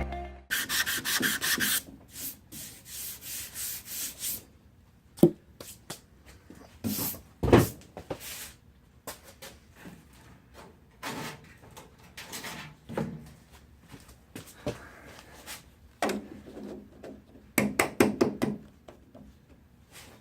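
Hand sanding of hardened body filler (Bondo) on a car door with a sanding block and sandpaper. It comes in runs of quick back-and-forth strokes about a second in and again near the end, with pauses and single strokes in between.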